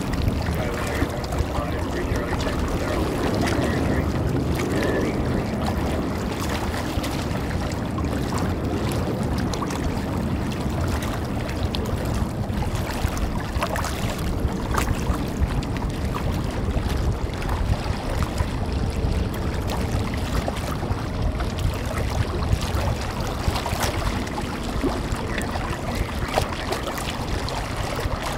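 Wind rushing over the microphone: a steady low rumble with no clear rise or fall.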